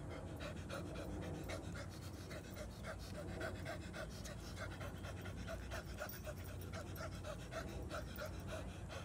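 A man doing Osho-style chaotic breathing: rapid, irregular panting breaths, about three a second, with no steady rhythm, as he moves his body.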